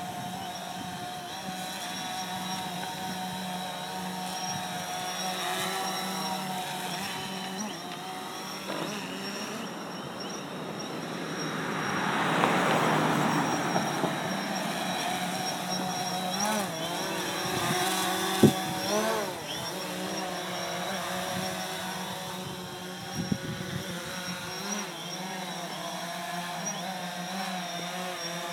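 Quadcopter drone's propellers whining steadily, the pitch wavering a few times past the middle as the drone manoeuvres. A passing car swells and fades about halfway through, and there is a single sharp click a little later.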